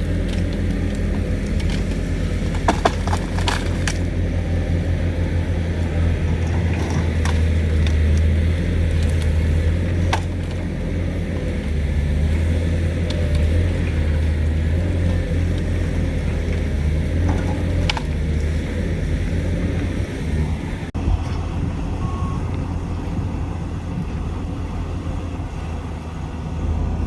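Pindad excavator's diesel engine running with a steady low drone, with a few sharp knocks and clanks now and then.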